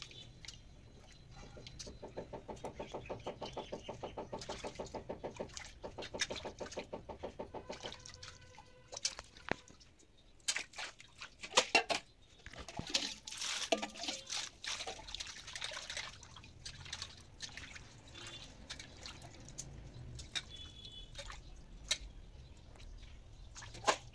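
Water splashing and sloshing in a steel bowl as cut magur catfish pieces are rinsed by hand, with sharp knocks of metal and the loudest splashes about halfway through. For about six seconds near the start a rhythmic, pitched pulsing sound runs under it.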